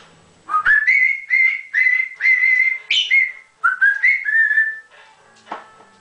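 African grey parrot whistling: about a dozen short whistled notes, each sliding up into a held pitch, in two runs with a short break in the middle.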